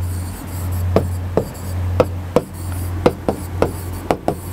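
Chalk writing on a chalkboard: a quick, uneven series of taps and scratches as the letters are formed, over a steady low electrical hum.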